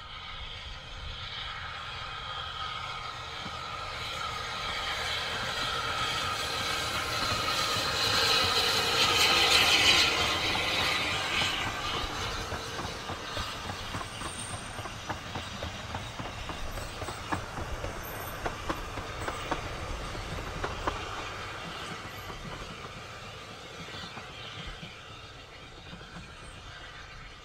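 Narrow-gauge steam train, locomotive 762 'Lyn' hauling four coaches, passing on 2-foot-gauge track: it builds up to its loudest about ten seconds in as the engine goes by. The coaches then click steadily over the rail joints as the train draws away and fades.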